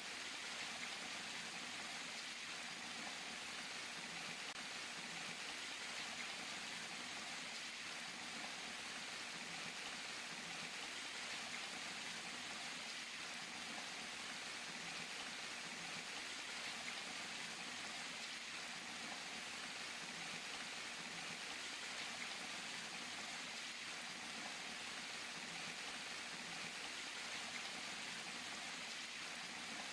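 Water streaming and splashing down a surface in many thin falls, a steady even rush with no let-up.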